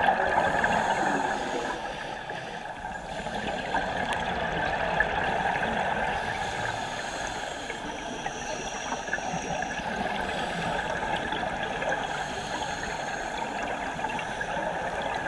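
Steady underwater noise with gurgling, picked up through an action camera's waterproof housing.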